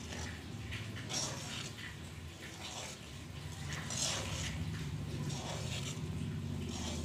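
A metal spoon stirs and scrapes through boiling milk in a steel kadai as lemon juice curdles it into chhana, with irregular wet sloshing and scraping strokes. A steady low hum runs underneath.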